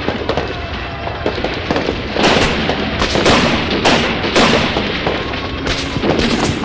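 Gunfire in a film's night shoot-out: a dozen or so pistol shots at irregular spacing, some in quick pairs, heaviest from about two seconds in.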